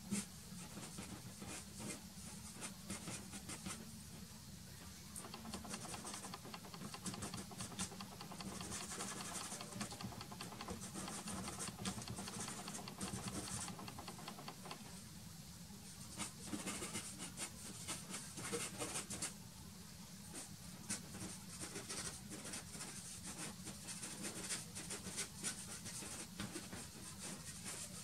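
Soft pastel stick scratching and dabbing on matte board coated with pastel primer, in runs of quick short strokes.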